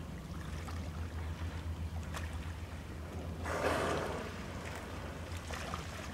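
Killer whale surfacing and exhaling, one breathy whoosh about three and a half seconds in, over a steady low hum.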